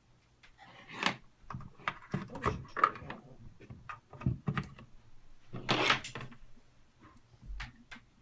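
Audio cables and plugs being handled and plugged into the gear: scattered small clicks and knocks with short rustles, the loudest rustle about six seconds in.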